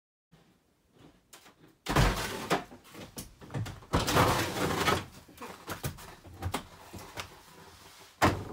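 A run of knocks, clunks and thumps from a Ford Transit cargo van's open rear doors being handled and a person climbing up onto its bare plywood floor. It starts about two seconds in, and a sharp knock comes near the end.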